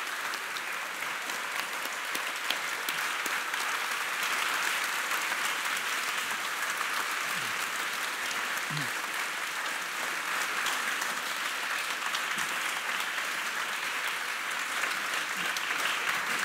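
An audience applauding: many people clapping steadily at a constant level.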